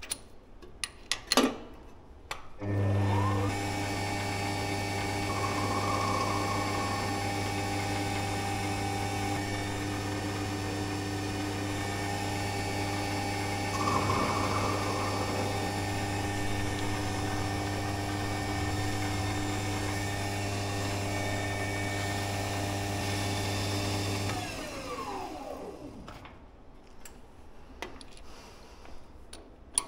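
A benchtop three-in-one mill/drill/lathe's spindle motor starts up at once and runs steadily, a strong hum with a whine above it, and twice a brief rougher noise rides over it. Near the end the motor is switched off and coasts down, its pitch falling. A few sharp clicks come just before it starts.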